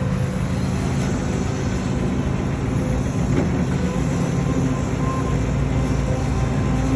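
Diesel engine of a Hidromek HMK 230LC excavator running steadily, its note rising a little about halfway through.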